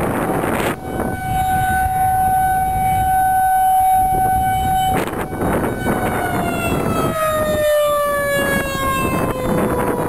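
Federal Signal 2001-SRNB electromechanical warning siren sounding a steady tone, which starts winding down in pitch about six seconds in. Heavy wind noise on the microphone partly drowns it out.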